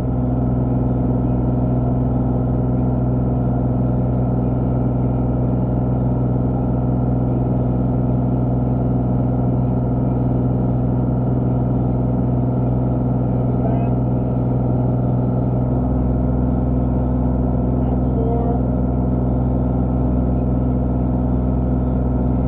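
Engine of a compact construction machine running steadily at an even speed, a constant low hum throughout.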